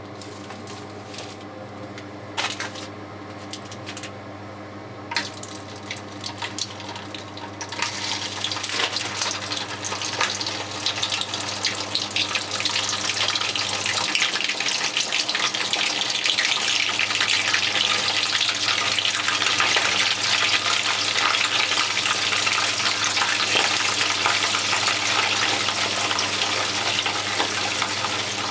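Frozen gyoza deep-frying in hot oil. After a few light clicks, a dense sizzling and crackling begins about eight seconds in, grows louder and then holds steady.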